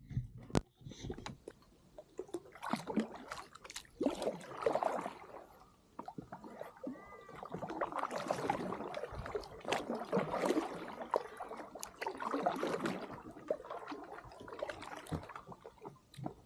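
Kayak paddle dipping and pulling through the water beside an inflatable kayak: splashing and dripping strokes that swell and fade every second or two.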